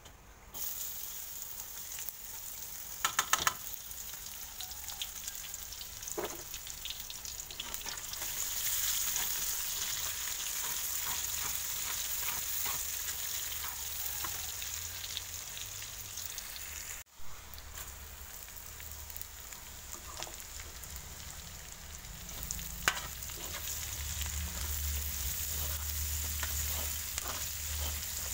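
Sliced shallots and garlic sizzling in hot oil in a wok, the hiss growing stronger about eight seconds in. A metal spatula clicks and scrapes against the pan now and then, with a quick run of sharp taps about three seconds in.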